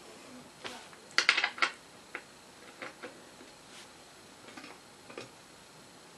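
Small metal clicks and clinks of chair hardware being handled: bolts picked up and a bolt set into the metal mechanism plate under an office chair seat. A quick cluster of sharp clinks comes about a second in, then scattered single clicks.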